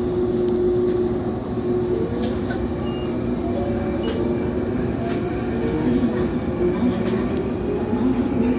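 Toyohashi streetcar running along street track, heard from inside the front of the car: a steady rumble of wheels on rail with a constant hum, and a motor whine that climbs slowly in pitch as the tram picks up speed.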